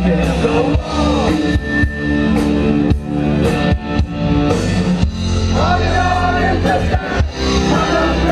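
Live rock band playing loudly: drum kit, electric guitars and bass, with a singer's voice coming in about two-thirds of the way through.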